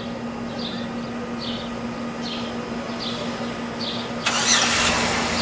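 Footsteps scuffing softly on pavement about once every 0.8 s, over a steady mechanical hum. About four seconds in, a louder rushing noise sets in and continues.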